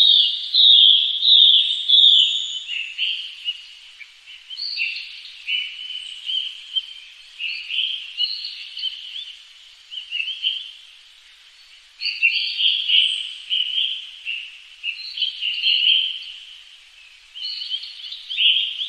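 Several small birds chirping and calling at once, a busy chatter of short high-pitched calls that thins briefly about eleven seconds in and then picks up again.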